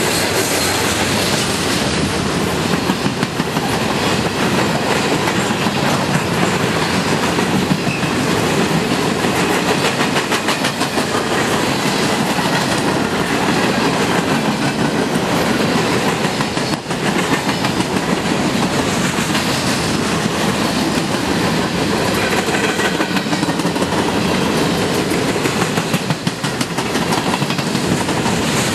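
A CN freight train's cars rolling past close by, the wheels clicking steadily over the rail joints.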